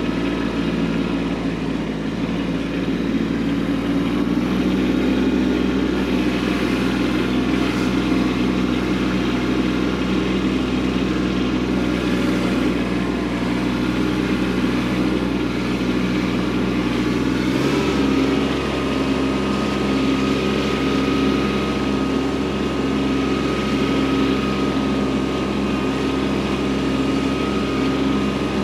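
Kubota B2601 compact tractor's three-cylinder diesel engine running steadily as the tractor drives along; its pitch steps up a little about two-thirds of the way through.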